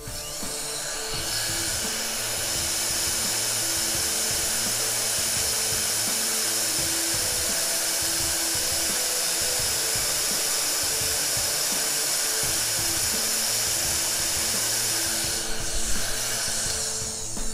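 Heat gun blowing hot air steadily to shrink heat-shrink tubing over a soldered LED strip joint. It starts about a second in and cuts off about two seconds before the end.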